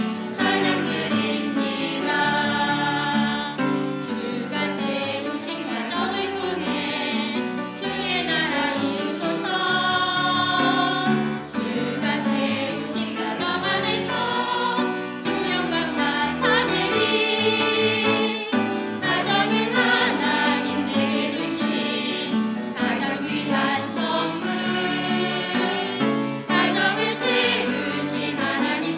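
Several voices singing a Christian worship song together over instrumental accompaniment with a moving bass line.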